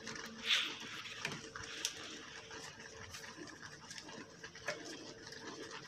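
Pechay (bok choy) leaves rustling as a hand packs them into a cooking pot, with a louder brush of leaves about half a second in and scattered light clicks.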